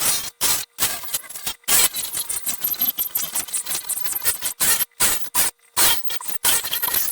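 Harsh scrubbing noise in irregular strokes, each lasting up to about a second and broken by short pauses, typical of brushing grime off a metal tool.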